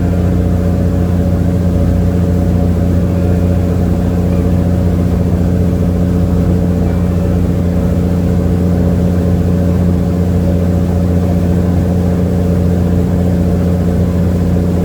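Sightseeing boat's engine running steadily, a low even hum with a deeper tone and one an octave above it, heard on board the boat.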